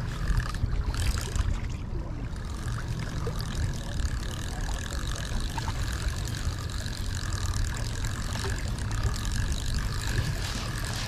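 A spinning reel being cranked, its rotor whirring in an even, repeating rhythm from about three seconds in, over a steady low rumble.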